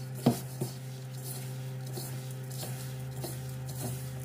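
Hands squeezing and kneading buttered biscuit crumbs in a stainless steel mixing bowl, a soft repeated squishing rustle, with a sharp knock about a third of a second in and a fainter one just after. A steady low hum runs underneath.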